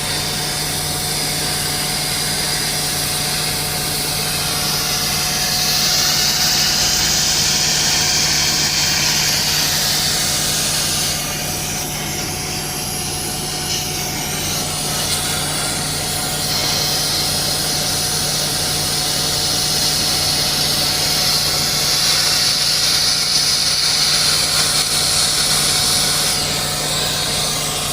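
Machinery running steadily with a constant hum, while a harsh high hiss swells up twice for several seconds each.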